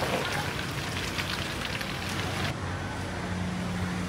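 Light rain pattering with a crackle of small drops. About halfway through it gives way abruptly to a duller steady hiss with a low hum underneath.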